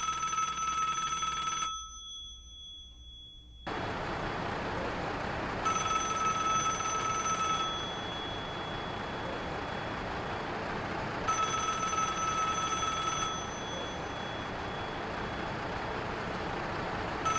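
Telephone ring tone sounding three times, each ring about two seconds long and repeating every five to six seconds, with a fourth ring starting at the very end. A steady noise runs underneath from about four seconds in.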